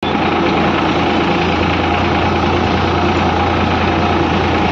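Farm tractor's diesel engine running steadily under way, heard from the driver's seat close to the upright exhaust.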